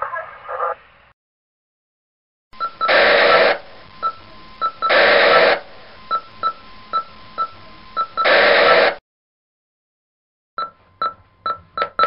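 Walkie-talkie radio sound effects: three bursts of static hiss about half a second long, with short electronic beeps every half second or so and a faint steady tone between them. After a pause, a quick run of radio beeps starts near the end.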